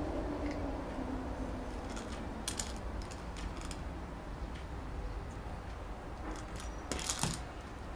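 A small dog playing with a plastic ball: scattered light clicks and knocks, a few about two and a half seconds in and a denser burst of them near the end.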